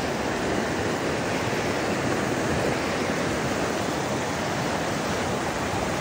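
Steady rush of a flowing river.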